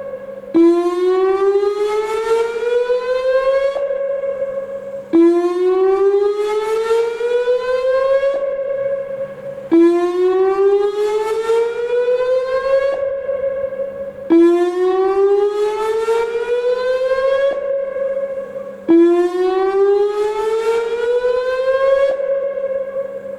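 Whelen WPS-2809 electronic outdoor warning siren sounding its whoop tone: a loud wail that climbs steadily in pitch for about three seconds, holds briefly, then drops and starts again, five times about every four and a half seconds. The sound dies away near the end.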